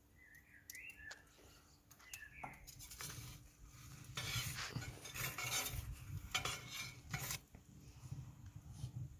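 A few short bird chirps, then from about three seconds in a metal utensil scrapes and clatters against the pizza stone for about four seconds.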